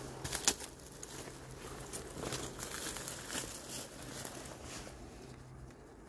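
Faint rustling and crinkling of fern fronds and dry leaves being handled, with scattered small clicks over a low steady hum.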